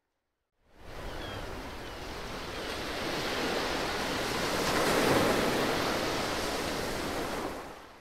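Ocean surf washing in, a rushing noise that swells to its loudest about five seconds in and fades away near the end.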